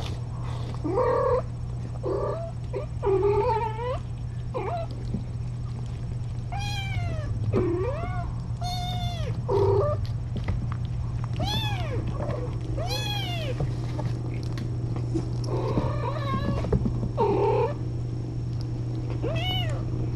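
Kittens meowing again and again, a dozen or more short high calls that rise and fall in pitch, some coming close together. A steady low hum runs underneath.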